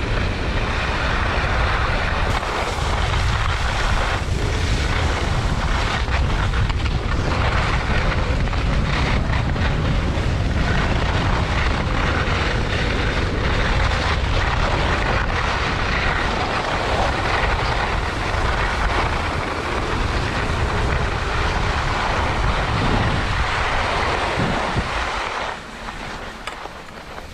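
Wind rushing and buffeting over a GoPro's microphone as a skier runs downhill, with skis hissing over groomed snow. It is a steady roar that eases near the end as the skier slows.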